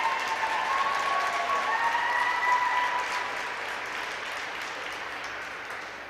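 Audience applauding, with some high-pitched cheering in the first half; the applause then fades away.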